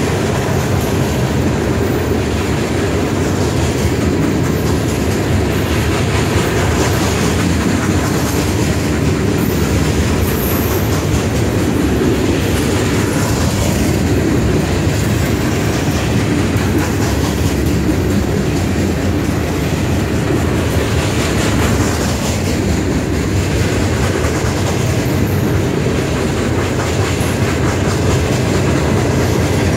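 Freight cars of a long CSX freight train rolling past at speed: a steady, loud rumble of steel wheels on rail with clickety-clack over the rail joints.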